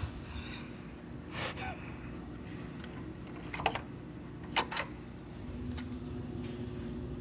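Steady low machine hum with a few sharp clicks and knocks: one about a second and a half in, and three more between three and a half and five seconds in.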